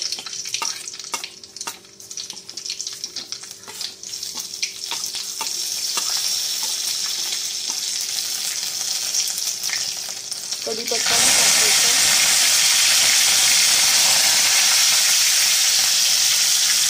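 Mustard and cumin seeds crackling and popping in hot oil in a kadhai, over a rising sizzle. About eleven seconds in it jumps to a loud, steady sizzle as curry leaves hit the oil.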